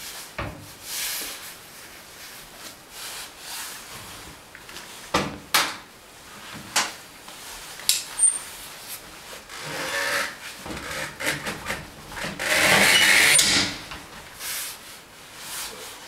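Nylon strap webbing rubbing and being pulled through its buckle as a washing machine is strapped onto a metal hand truck, with scattered clicks and knocks from the frame and strap hardware. A louder rasping rush lasting about a second comes near the end.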